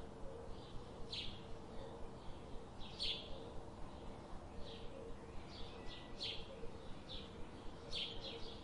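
Small bird chirping: short, high, falling calls repeated at uneven gaps, about nine times, with a faint steady hum underneath.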